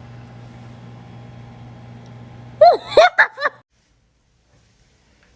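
A low steady hum, then about two and a half seconds in a quick run of four or five short laughs or giggles from one person, ending abruptly in dead silence.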